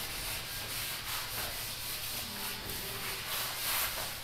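Whiteboard duster rubbing back and forth across a whiteboard as it is wiped clean: a steady scrubbing.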